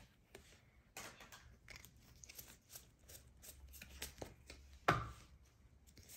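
Faint clicks and slides of Pokémon trading cards handled one at a time in a hand-held stack, with a sharper tap about five seconds in.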